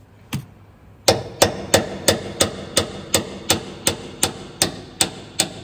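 Hammer tapping a tool held against the steering idler arm bearing nut: one knock, then a steady run of about three sharp, ringing metal-on-metal strikes a second, to free the nut and its locking tab.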